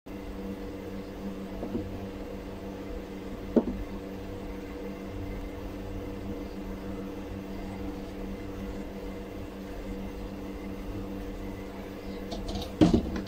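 A steady low, machine-like hum with a few knocks: a sharp one a few seconds in and a louder cluster near the end.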